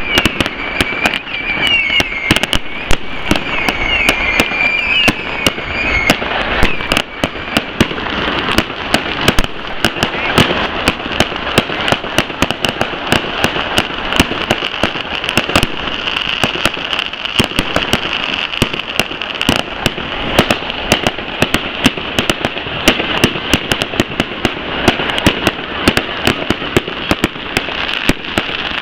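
Fireworks display: a rapid, unbroken string of bangs and crackles from shells bursting overhead.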